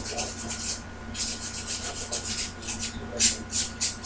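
Abrasive scrubbing strokes on metal, cleaning a wire connection down to fresh metal before soldering. A quick run of back-and-forth strokes gives way to a few slower, separate strokes near the end.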